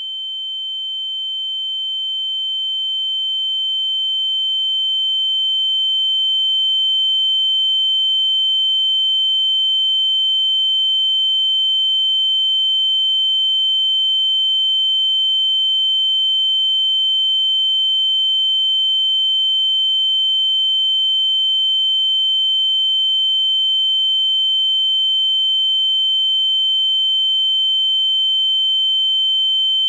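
Ear-ringing (tinnitus) sound effect: a steady, high-pitched electronic whine that swells in over the first several seconds and then holds level.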